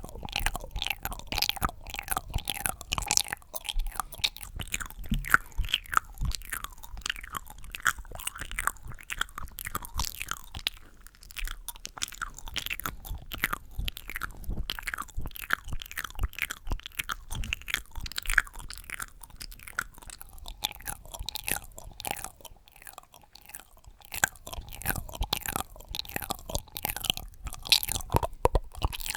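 ASMR mouth sounds: a dense stream of wet clicks, smacks and pops, many a second, easing off briefly about 11 and 23 seconds in.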